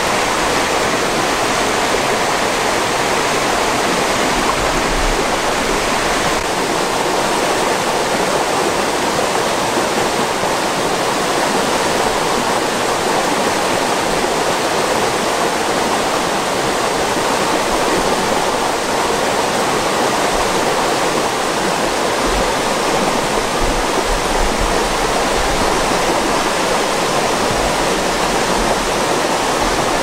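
Small river cascades pouring steadily over rocks into a pool: a continuous, even rush of falling and flowing water.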